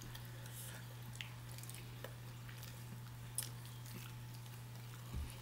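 Quiet eating: two people biting into and chewing fried chicken, with a few faint soft clicks, over a steady low hum.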